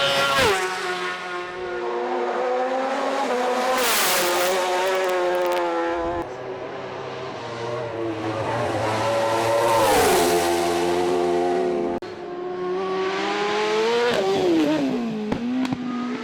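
Racing motorcycle engines at high revs, the engine note falling sharply in pitch several times as bikes rush past or shut off, with a rush of wind noise each time. Nothing in this sound is speech or music.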